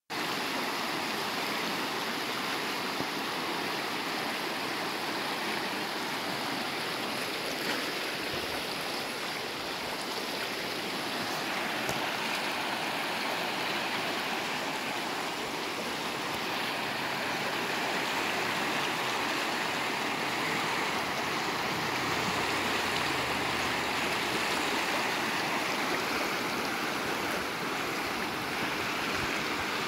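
Fast, shallow river rushing over a stony bed through small rapids: a steady, unbroken rush of water.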